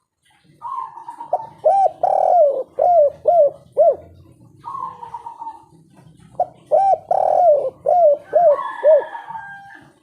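Spotted dove (tekukur) cooing its 'kuk 3' song: two phrases, each a drawn-out opening note followed by a run of about five short coos that rise and fall in pitch.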